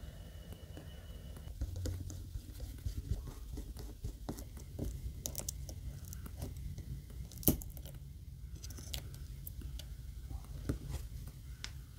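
Metal tweezers clicking and scraping against small parts inside an opened iPhone 16 Pro as a small component is pried loose. Scattered light clicks and crackles, with one sharp click about seven and a half seconds in.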